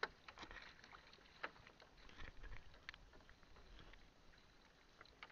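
Faint, irregular clicks and taps from a small outrigger canoe as a gill net and its floats pay out over the side while the boat is paddled, over a soft wash of water. The sharpest click comes at the very start, with another about a second and a half in.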